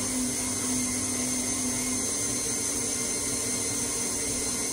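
Electric tilt-head stand mixer running steadily at speed, its motor whirring with a faint high whine as the beater whips cream cheese frosting with icing sugar. A low hum in the sound drops away about halfway through.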